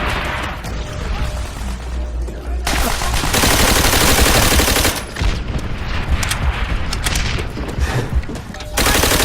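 Dubbed WWII-style battle sound effects: a dense stream of gunfire, with a long, loud burst of machine-gun fire from about three to five seconds in and another short burst near the end.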